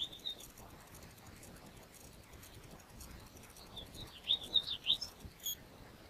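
Small songbird chirping at its nest: one short high chirp at the start, then a quick run of high chirps about four seconds in.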